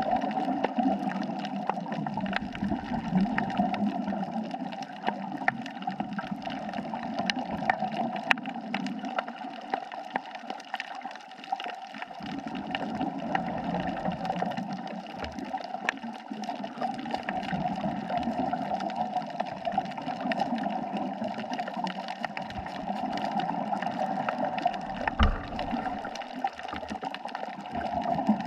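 Underwater reef ambience picked up through a camera housing: a steady gurgling murmur of water, scattered with many faint sharp clicks.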